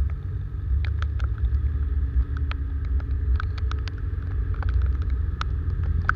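Motorcycle riding slowly in heavy rain: a steady low rumble of engine and wind on the microphone, with raindrops tapping sharply and irregularly on the camera.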